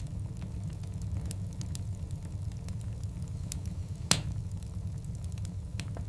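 Wood fire of large burning logs: a steady low rumble with scattered small crackles and one loud pop about four seconds in.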